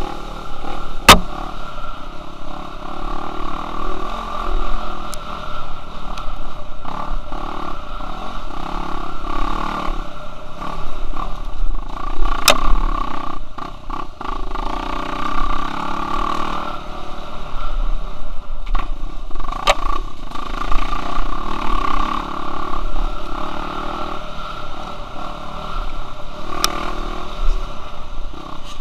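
Dirt bike engine running under load on a trail, the revs rising and falling as it is throttled on and off, with a few sharp clacks from the bike over rough ground.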